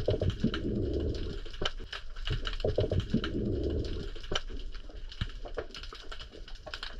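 Underwater sound of a meagre, a croaker, grunting: two low rumbling grunts of about a second and a half each, separated by a short gap, over scattered small clicks in the water.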